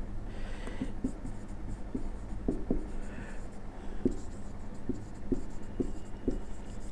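Marker writing on a whiteboard: light irregular taps and short scratchy strokes of the felt tip as letters are formed, over a low steady hum.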